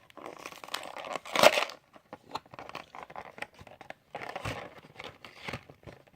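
Plastic blister packaging of a die-cast toy car crinkling and tearing as it is opened by hand, with one sharp, loud rip about a second and a half in and more crinkling near the end.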